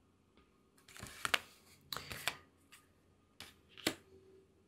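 Tarot cards being handled on a table: a handful of faint, short rustles and taps, the sharpest one near the end.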